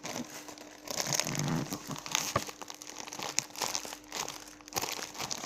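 Plastic packaging crinkling and rustling in irregular bursts as a squishy toy is handled and unwrapped.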